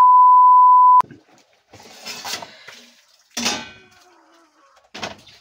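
A steady high beep, like a test tone, for about a second, cut off sharply. Then rustling and clinks of metal kitchenware being handled: the loudest is a clatter with a short ring a little past the middle, and another clink comes near the end.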